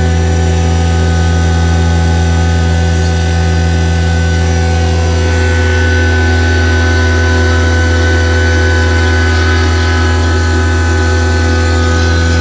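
Fieldpiece VP85 two-stage rotary-vane vacuum pump running steadily with a deep hum, pulling a vacuum on an R22 air-conditioning system early in the evacuation, while the micron gauge still reads over-limit.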